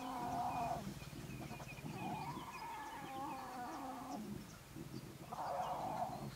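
Lion cubs growling at one another while fighting over their mother's milk: a drawn-out growl ending under a second in, another from about two to four seconds in, and a shorter one near the end.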